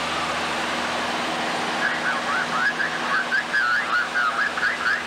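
Steady drone of a light plane's engine and airflow heard inside the cabin, with a low hum. About two seconds in, a quick warbling, wavering sound at mid pitch comes in over it and runs for about three seconds.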